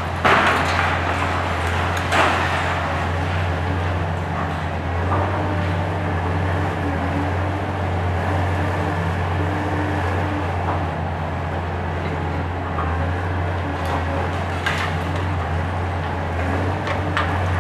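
Hitachi ZX 870-3 high-reach demolition excavator's diesel engine running steadily under load, with hydraulic tones shifting in pitch now and then. Concrete crashes sharply a few times, loudest just after the start and about two seconds in.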